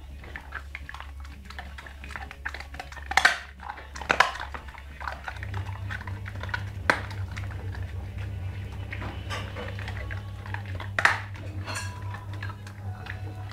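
An American pit bull terrier gnawing a meaty bone, with scattered small chewing noises and a few sharp cracks of teeth on bone.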